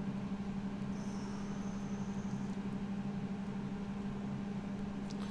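Steady low mechanical or electrical hum, with a faint high whine from about a second in until about two and a half seconds.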